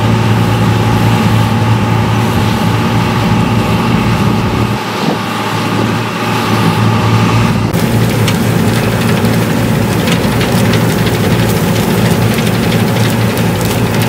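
New Holland Clayson combine harvester running steadily under load while harvesting barley: engine drone with the whine of the threshing and straw-handling gear. The sound shifts abruptly about eight seconds in, taking on a harsher, rattly edge.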